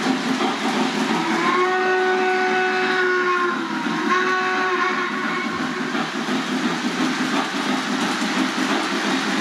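Electronic steam-whistle sound from a Lionel model Norfolk & Western steam locomotive's onboard sound system: a chord whistle blown twice, a long blast then a shorter one, over the steady rolling rumble of the model train's wheels on the track.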